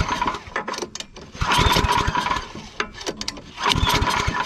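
Tecumseh Snow King snowblower engine being pull-started on its recoil starter. The engine turns over in three surges about two seconds apart, each lasting about a second, and does not fire because it has not been primed.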